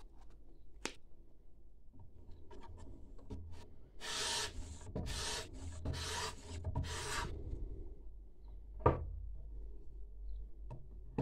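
A wet-and-dry abrasive bar on a homemade Edge Pro-style guided sharpener scrapes along a steel knife edge in about five quick rasping strokes. A little later comes a single sharp knock.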